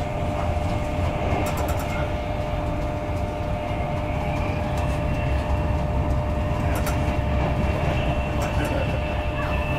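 Running noise inside an Intercity 225 Mark 4 passenger coach travelling at speed: a steady low rumble from the wheels on the rails, with a constant hum over it. A few short clusters of sharp clicks come through, about a second and a half in and twice near the end.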